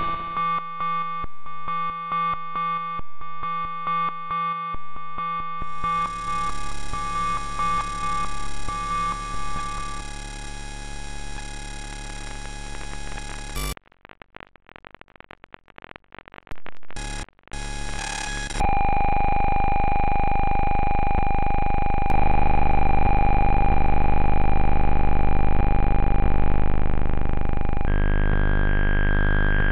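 Electronic soundtrack from the bent.fm synthesizer app. Rapid stuttering tones give way at about six seconds to a dense sustained tone, which cuts off to a few seconds of near silence broken by clicks. A loud steady drone then comes in, with low notes stepping beneath it.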